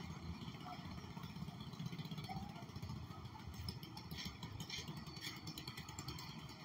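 A small motor vehicle's engine running, a steady low rumble, with some light clicking in the middle.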